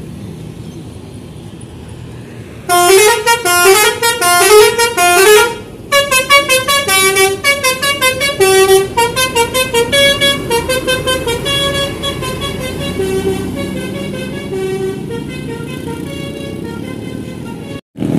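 A bus's Basuri telolet horn, a multi-trumpet musical air horn, plays a quick melody of stepping notes over a low engine rumble. It starts loud about three seconds in, breaks off briefly, plays on, and grows gradually fainter over the last several seconds.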